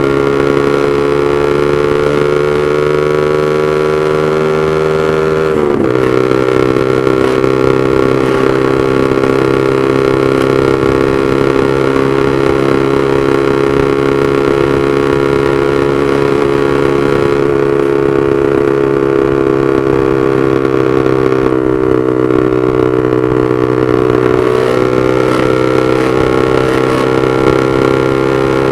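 Honda CB150R's single-cylinder four-stroke engine running loud through a Proliner aftermarket exhaust while riding. The engine note drifts slowly down and up in pitch, and dips sharply for a moment about six seconds in.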